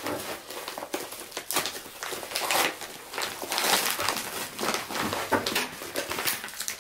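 Packaging wrap being torn and crinkled by hand, in irregular crackly rustles that are loudest about halfway through.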